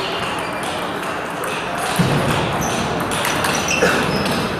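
Table tennis balls clicking off bats and tables, many short ticks from several tables in play, over the hubbub of a sports hall, with a thud about two seconds in.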